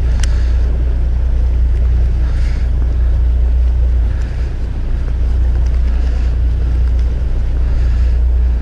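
Steady low drone of a fishing boat's engine, with wind noise on the microphone and one sharp click shortly after the start.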